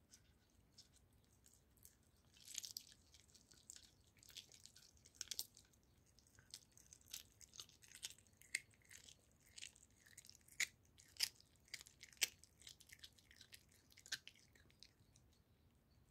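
Tabby cat chewing and biting a raw goose neck, with irregular sharp crunches as its teeth work through the meat and bone, starting about two seconds in.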